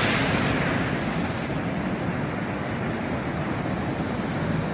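Storm waves crashing against a seawall and terrace: a burst of spray hiss at the start fading into a steady wash of surf. Wind buffets the microphone with a low rumble.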